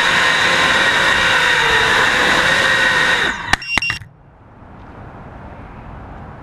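Nighthawk race drone's brushless motors whining steadily, several tones at once, then spinning down about three seconds in. Two sharp knocks follow, and after them only a low hiss remains.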